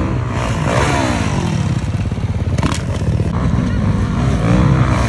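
Dirt bike engine revving, its pitch climbing and falling again and again as the rider works the throttle on the run toward a jump. There is a brief sharp click about two and a half seconds in.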